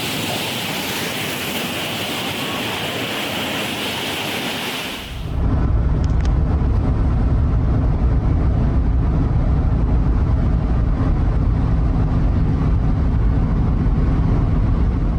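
Roar of a tidal bore's surging water, a steady hiss-like rush. About five seconds in it cuts abruptly to a heavy, steady low rumble.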